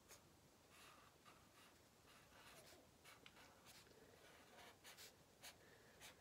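Faint strokes of a felt-tip marker on sketchbook paper as a word is written letter by letter: a string of short, irregular scratches.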